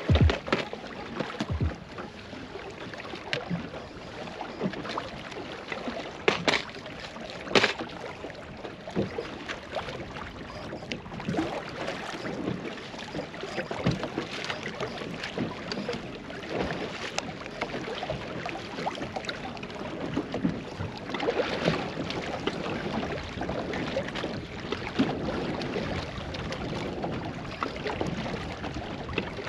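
Sounds of a small fishing boat on the water: a steady rustling noise with many small clicks and knocks, and a few sharper knocks about six and seven and a half seconds in.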